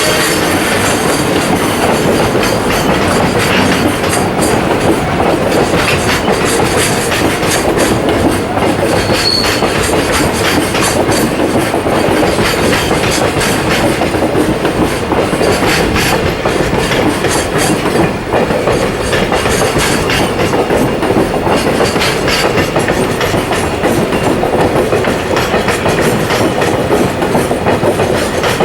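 Container freight train hauled by an EH200 electric locomotive rolling past steadily, its wagon wheels clattering over the rail joints.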